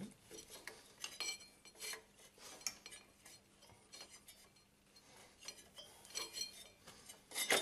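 Scattered light metallic clinks and scrapes as a camshaft pulley is worked forward off its shaft by hand. A louder clatter comes near the end.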